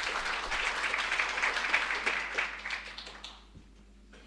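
Audience applauding, the clapping dying away about three and a half seconds in.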